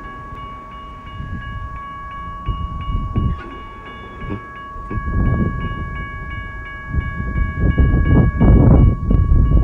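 Railroad crossing warning bell starting to ring as the crossing activates, a steady rapid ringing of about three strikes a second. Wind buffets the microphone, heaviest near the end.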